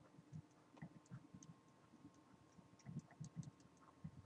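Faint, irregular ticks and taps of a stylus pen on a drawing tablet during handwriting, bunched most densely about three seconds in.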